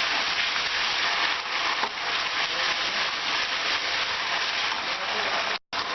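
Ginger-garlic paste and sliced onions frying in hot mustard oil in a kadhai: a steady sizzle. It cuts out for a moment near the end.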